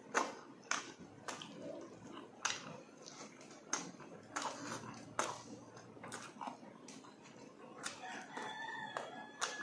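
Mouth sounds of someone eating by hand: wet chewing and irregular sharp lip-smacking clicks, roughly one every half second to a second. Near the end a drawn-out, wavering animal call sounds in the background for about a second and a half.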